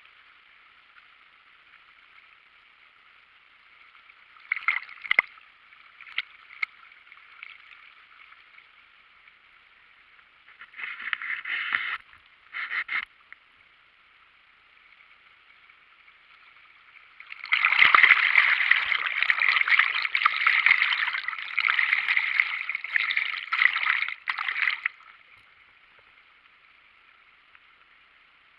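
Waterfall rushing: a steady thin hiss of falling water that swells several times into louder, rougher stretches, the longest lasting about seven seconds in the second half.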